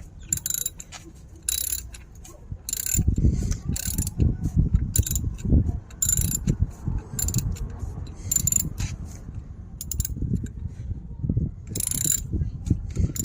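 A thick rubber brake-pedal pad being pushed and worked onto a motorcycle's metal brake pedal: irregular rubbing and knocking, with sharp clicks every second or so.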